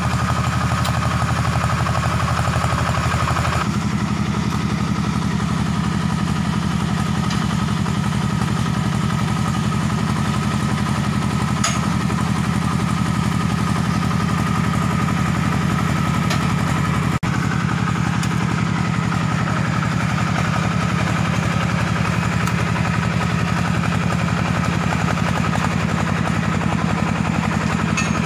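Engine of a Big Bull C-1500E tracked mini dumper running steadily, its note shifting slightly about four seconds in, with a few faint clicks over it.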